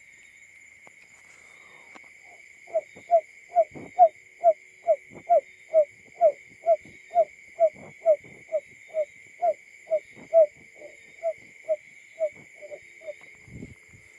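Barred buttonquail call: a run of about two dozen short, low hoots, a little over two a second, growing fainter near the end. A steady high-pitched whine runs underneath.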